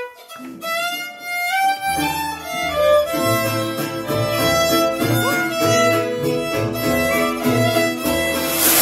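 Violin playing a melody, joined about two seconds in by a low plucked-string accompaniment on a steady beat. A short rush of noise comes right at the end.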